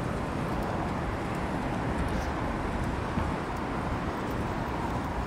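Steady city background noise: a low hum of distant road traffic.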